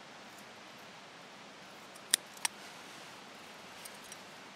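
Scissors snipping through a piece of leather strap: two sharp snips about a third of a second apart, then two faint ticks near the end.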